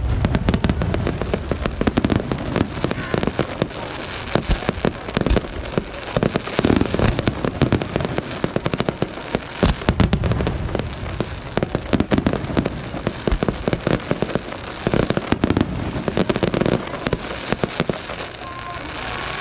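Fireworks display: a dense, continuous barrage of bangs and crackling.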